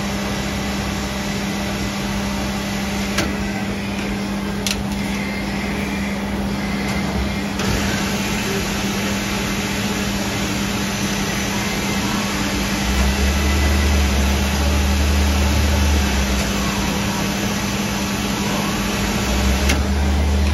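EMCO Turn 425 MC CNC twin-spindle lathe powered up, giving a steady machine hum with a couple of sharp clicks. A deeper rumble comes in for a few seconds past the middle and returns near the end.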